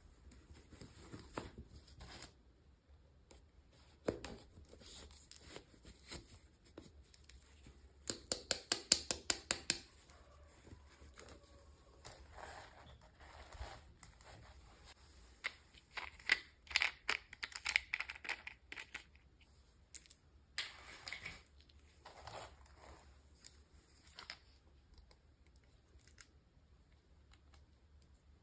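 Toy packaging being handled and opened by hand: plastic and paper crinkling and tearing. Partway through comes a quick run of sharp clicks, followed by louder bursts of rustling.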